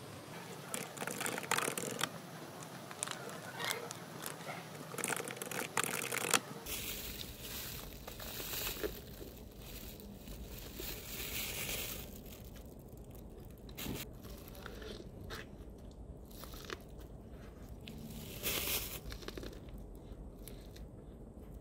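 Close-up eating sounds: plastic wrap and packaging crinkling in the hands, with bites and chewing of a cob of sweet corn held in plastic wrap. The crackling is densest in the first third, then thins to scattered small crackles and chewing, with one louder rustle near the end.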